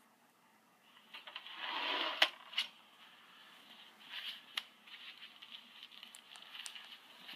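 Audio of a YouTube video playing through a tiny homemade LM386 amplifier speaker, starting about a second in: faint and thin, with almost no bass, mostly upper-middle sound and a few sharp clicks.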